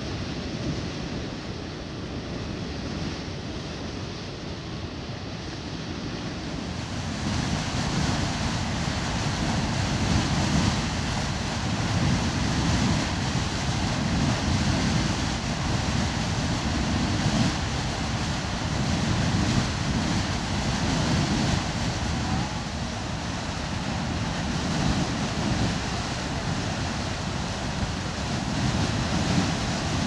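Geyser erupting from its cone: a steady rushing noise of water and steam jetting out, growing louder and brighter about seven seconds in.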